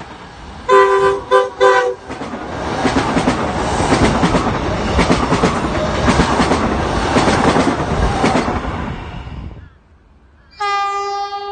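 Electric suburban multiple-unit train sounding three short horn toots about a second in, then passing close by with loud wheel and rail noise and rhythmic clatter over the rail joints, which drops off suddenly as it clears. A long horn blast sounds near the end.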